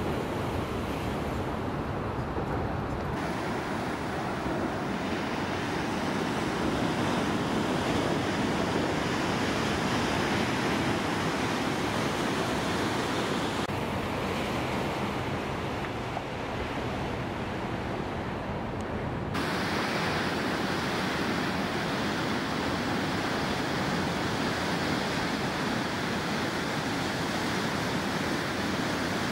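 Ocean waves breaking and surf washing in a steady rushing noise. The character of the rush changes abruptly a few times.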